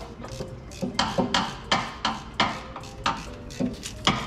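Hand tools working on an engine: a run of sharp clicks and knocks, two or three a second, irregularly spaced.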